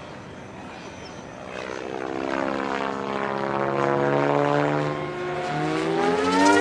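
Protos Max Leggero electric RC helicopter flying, its rotor buzz and motor whine growing much louder as it comes closer. The pitch rises steeply near the end.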